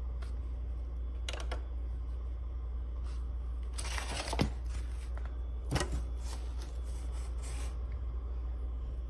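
Brief rustling and scraping handling noises, loudest about four and six seconds in, over a steady low hum.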